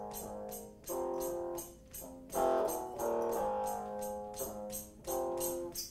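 Live band playing a slow song: sustained chords over a steady, high percussion beat of about three to four strokes a second, with no singing.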